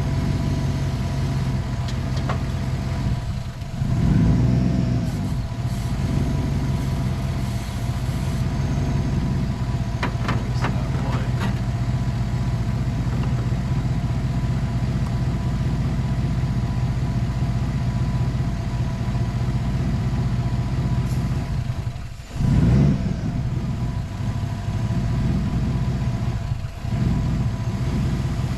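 Gasoline engine idling while Seafoam engine cleaner is sprayed down its open intake. Twice it dips briefly, about three seconds in and again near the end, then surges louder before settling back to a steady idle.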